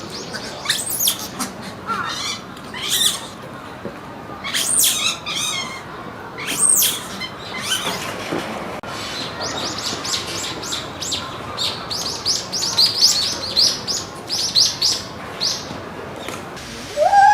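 Small monkey giving high-pitched chirping calls: several sharply falling squeaks, then a long, fast run of short chirps.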